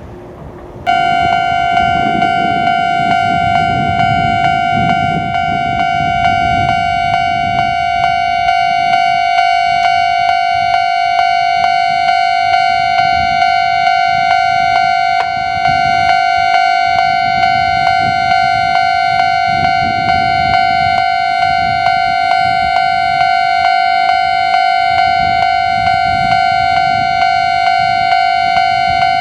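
Japanese railway level-crossing warning bell starts abruptly about a second in and keeps ringing with an even, repeating electronic ding, signalling that a train is approaching and the crossing is closing.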